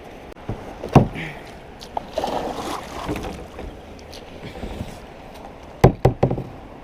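Kayak paddle knocking against a plastic kayak hull while paddling, with water sloshing. There is a sharp knock about a second in and three quick knocks near the end.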